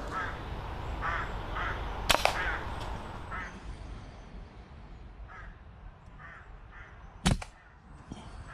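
Crows cawing at intervals of about a second. About two seconds in, a Brocock Pathfinder air rifle fires once: a sharp crack with a second report a fraction of a second after it. A single heavy thump comes about seven seconds in.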